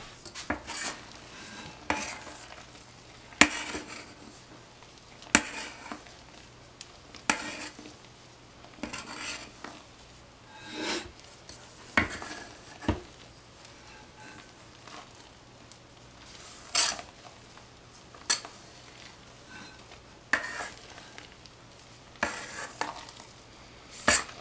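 A spatula scraping and knocking against a stainless steel mixing bowl as beaten egg whites are folded by hand into a thick batter, in irregular strokes every second or two with a few sharp taps.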